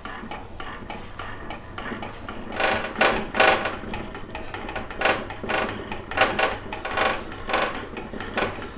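Wooden rolling pin stirring thick jowar flour batter in a metal pot, scraping and knocking against the pot's sides in a run of irregular strokes, about two a second from a couple of seconds in.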